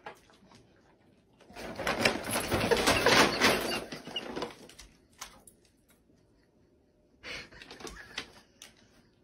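Paper shopping bag rustling and crinkling for about three seconds as it is knocked over, then shorter, quieter rustles near the end as it is nosed by a dog.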